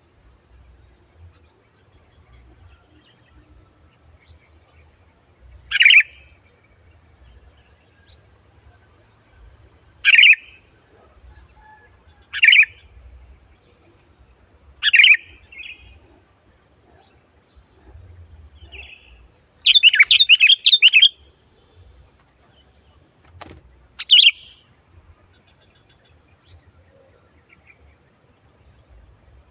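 Sooty-headed bulbul (kutilang) calling loud and clear: single short phrases every few seconds, then a quick run of several notes about twenty seconds in, and one more call a few seconds later.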